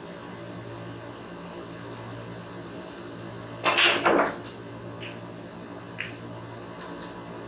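Snooker shot: the cue tip strikes the cue ball and sharp clacks of the balls colliding follow about three and a half seconds in, with a few lighter clicks of balls after. A steady low hum runs underneath.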